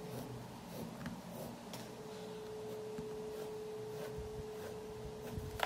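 Pencil drawing along the edge of a plastic ruler on paper: faint scratching strokes and light taps, with a sharper click near the end. A steady faint hum sets in about a second and a half in.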